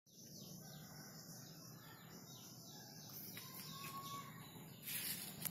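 Faint background birds chirping over a low hum, with a short steady whistle-like tone a little after the middle and louder rustling noise near the end.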